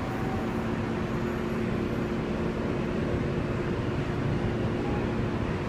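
Steady rumble inside an R160 subway car, with a constant low hum from the train's equipment.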